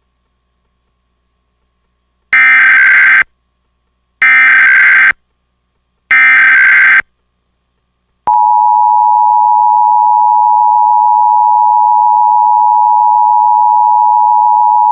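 Emergency Alert System activation: three one-second bursts of SAME header data tones, about two seconds apart. Then, from about eight seconds in, the loud steady two-tone attention signal (853 and 960 Hz) sounds, opening a National Periodic Test.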